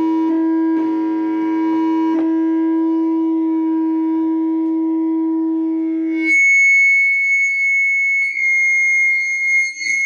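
Audio feedback from a stereo loudspeaker: a steady low-pitched tone with overtones that switches abruptly to a steady high-pitched tone about six seconds in.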